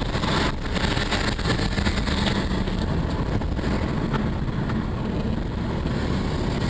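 Steady engine and tyre noise of a car driving on a wet road, heard from inside the cabin.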